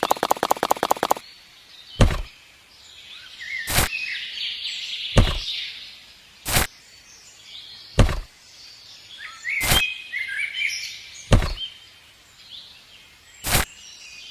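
A sharp thump about every one and a half to two seconds, eight in all, with small birds chirping throughout. It opens with a quick run of clicks, about ten a second, lasting a second.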